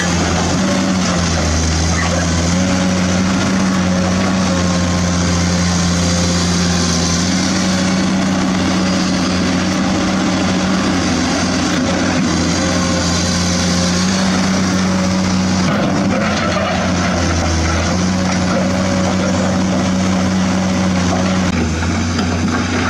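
Excavator motor running steadily, its pitch stepping up and down every few seconds.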